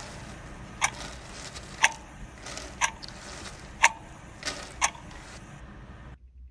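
A clock ticking, one sharp tick about every second, with an extra click between two of the ticks near the end. Under the ticks is a steady hiss that cuts off suddenly near the end.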